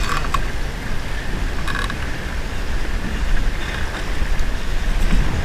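Steady low rumble of wind and sea around a small boat, with two brief clicks, one at the start and one about two seconds in.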